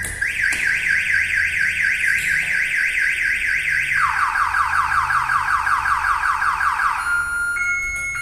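Prestige X1 car alarm siren going off, set off by an attempt to start the armed, immobilised car. It gives a rapid rising whoop of about five sweeps a second, drops to a lower-pitched whoop about four seconds in, and switches to a steady tone near the end.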